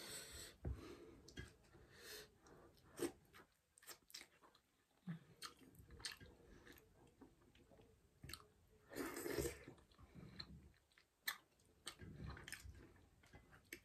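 Quiet close-miked chewing and mouth sounds of a person eating by hand, with scattered small clicks and smacks and one longer, louder sound about nine seconds in.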